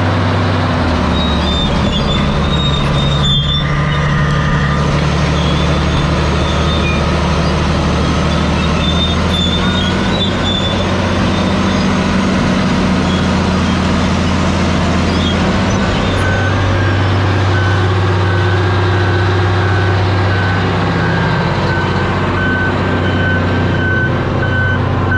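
Large Caterpillar bulldozer's diesel engine running just after a hard start, its note shifting a few times. About sixteen seconds in, a reverse alarm starts beeping steadily.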